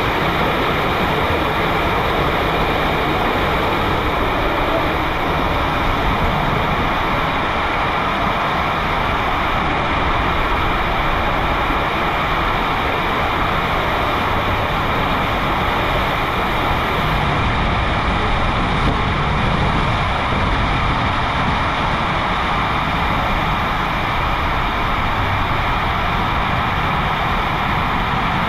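Steady rush and rumble of water and a rider's tube sliding fast through an enclosed, pitch-black fibreglass water-slide tube (WhiteWater West Giant AquaTube).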